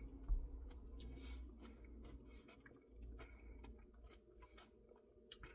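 Faint chewing and small wet mouth clicks of a person eating a Dairy Queen Pumpkin Pie Blizzard.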